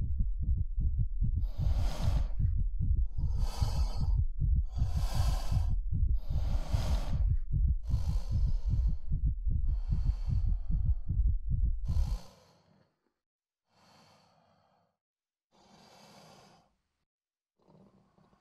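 A young man breathing hard and raggedly in distress, one loud breath about every second and a half, over a deep rapid low pulsing. About twelve seconds in the pulsing cuts off suddenly, and his breaths go on much softer and further apart.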